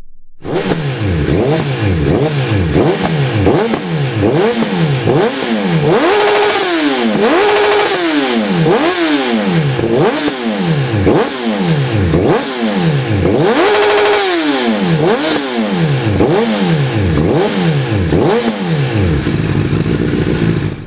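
A 2006–2007 Honda CBR1000RR's inline-four engine revved through a Dominator aftermarket exhaust while standing still. Quick throttle blips come about once a second, each rising and falling. Twice the revs are held higher for a second or more.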